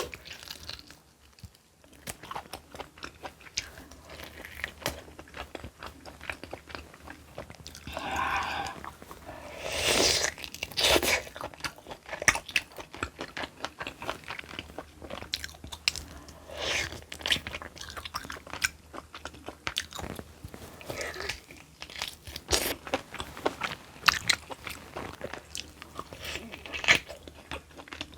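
Close-miked crunching and chewing of crunchy kimchi, bite after bite, with a louder stretch of eating noise about eight to eleven seconds in.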